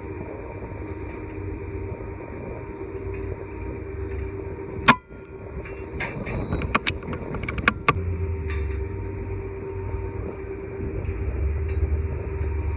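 Wind rumbling steadily on the microphone, with one sharp, loud crack about five seconds in, then a quick run of clicks and knocks over the next few seconds.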